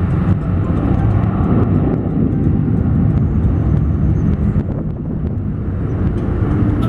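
Boeing 737-800's CFM56 turbofan engines at takeoff thrust: a loud, deep, steady rumble that eases slightly after about four and a half seconds.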